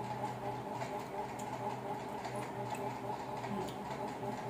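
Eating sounds of people eating rice and curry by hand: frequent small irregular clicks and smacks of mouths and fingers on food, over a steady low hum.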